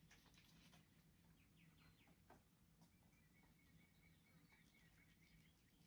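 Near silence: faint scattered clicks and ticks, with a faint thin high tone held for a couple of seconds in the middle.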